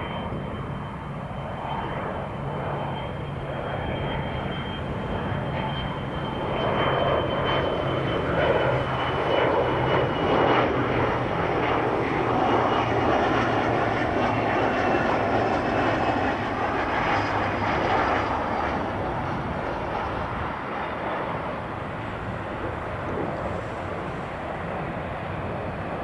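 Learjet 60 business jet's twin turbofan engines on landing approach: a steady jet rumble with a high whine that glides slowly down in pitch as the jet passes close, loudest in the middle, then easing off as it rolls out on the runway.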